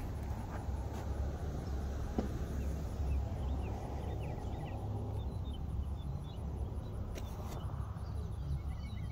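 Steady low outdoor rumble with faint bird chirps a few seconds in, a couple of light clicks near the start and one sharper crack about seven seconds in.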